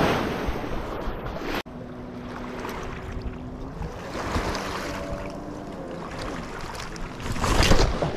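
Wind buffeting the microphone over small waves lapping on a rocky lakeshore, loud for the first second and a half and then cutting off suddenly to a quieter wash with a faint hum. A loud gust of wind noise comes near the end.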